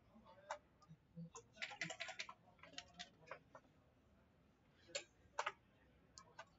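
Sharp clicks and clacks of backgammon play: checkers set down on the board and dice rolled. A quick rattle of clicks about two seconds in, then single clicks near five seconds.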